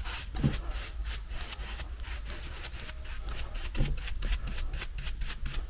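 Bristle paintbrush scrubbing gilding wax onto the corner of an old pine wooden base, in quick repeated strokes, several a second.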